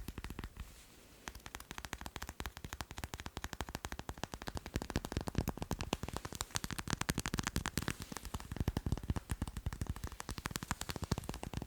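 Fingers tapping fast on macarons: a dense run of quick, crisp taps that stops briefly about half a second in and resumes about a second in.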